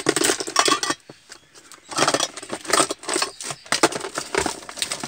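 Hands rummaging through the loose items in a car's centre console: packaging and small objects rustling and clattering, with a short lull about a second in.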